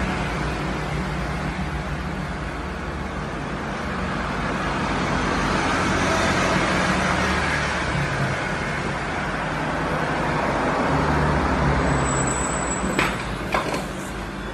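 Road traffic noise, a steady rumble and hiss that swells and fades twice as vehicles pass, with a few light clicks near the end.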